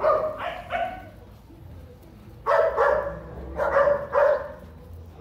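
A dog barking: three quick barks at the start, then after a pause of about a second and a half, two more bursts of barking.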